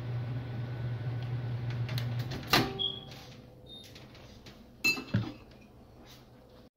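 Steady low hum that cuts off about two and a half seconds in, then a sharp clink with a brief ring and, about two seconds later, two quick clicks: kitchen handling sounds of seasoning bottles, a flip-top cap and a glass bottle, being used over a pot.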